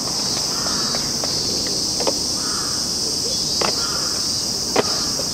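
Summer cicadas droning steadily at a high pitch, with a few scattered sharp taps about a second apart.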